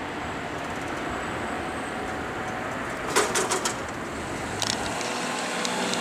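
Railway level crossing just after the trains have passed, its barrier arm lifting: a steady rushing noise, a quick run of sharp clacks about three seconds in and a few more a moment later, then a low hum near the end.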